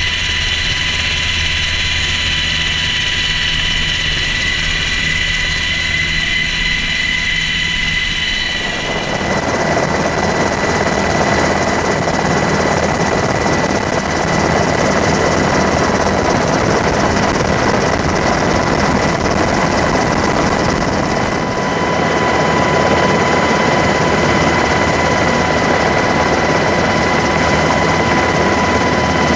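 Sikorsky MH-60T Jayhawk helicopter in flight, heard from its open cabin door: steady high turbine and gearbox whine over rotor hum. About eight seconds in the sound changes abruptly to a broader, steady rush of helicopter noise.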